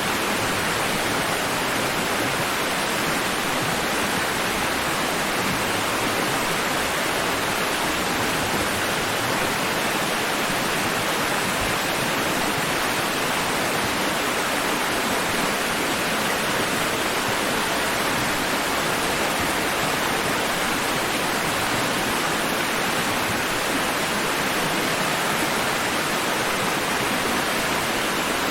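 Continuous rushing water: an even, steady wash of noise with no rise and fall of separate waves.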